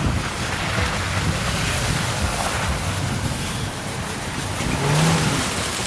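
Wind buffeting the microphone over a steady low rumble, with a short rising tone about five seconds in; it cuts off abruptly at the end.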